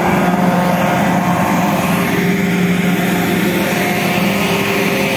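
Large ventilation fans of a railway tunnel under construction running with a steady droning hum.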